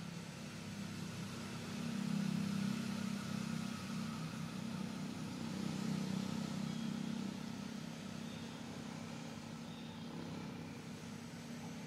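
A low engine rumble that swells for a few seconds and then eases off, over a steady outdoor hiss.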